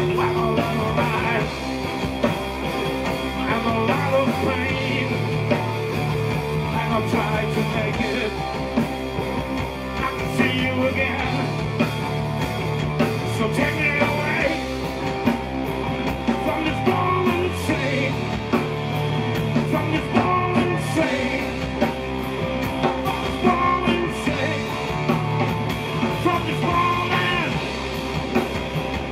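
Live rock band playing an instrumental passage: electric guitars, bass guitar and drum kit together, loud and steady.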